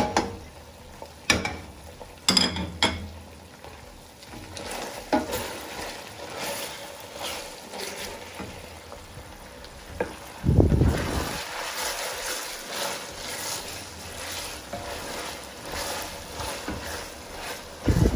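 Wooden spatula stirring and scraping minced beef, onions and garlic frying in a stainless steel pot, with sizzling and repeated scrapes and knocks against the pot. A brief low rumble comes about ten seconds in.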